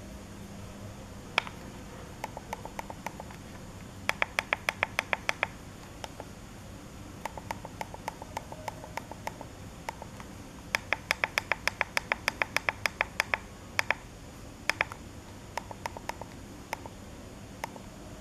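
Runs of sharp clicks from an e-bike LCD display's push buttons pressed over and over in quick succession, about seven a second in the two loudest runs, with softer, sparser clicks in between.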